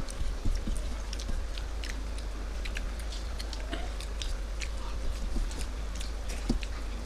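People eating rice and fish curry by hand: chewing with many small, irregular mouth and eating clicks over a steady low hum.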